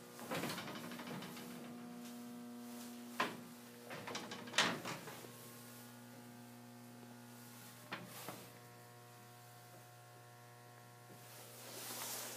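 Steady electrical hum with several even tones, broken by a few sharp knocks and clatters about three, four and a half and eight seconds in.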